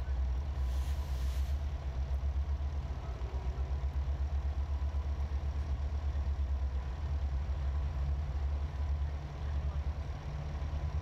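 Large truck engine idling close by: a steady low rumble with a fast, even pulse.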